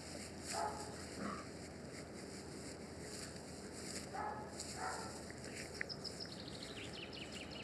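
Puppies about six weeks old playing and wrestling, giving a few short yips and grunts. A bird trills in the background near the end, a fast falling run of high notes.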